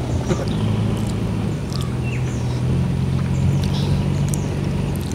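A steady low engine drone, with birds chirping over it now and then.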